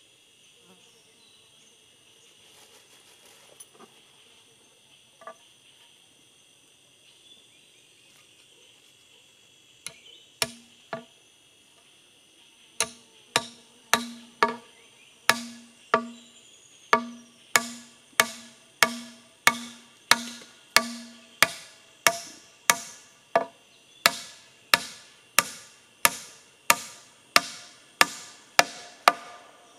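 Hatchet chopping into wood with a steady rhythm of about one and a half strokes a second. Each stroke is a sharp knock with a short ringing tail. After a few scattered strokes about ten seconds in, the run starts around a third of the way through; a steady high insect buzz fills the background throughout.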